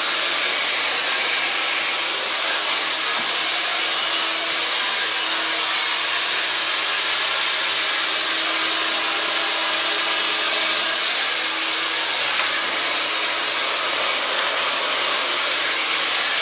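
Handheld hair dryer blowing steadily as it blow-dries short hair, cutting off at the very end.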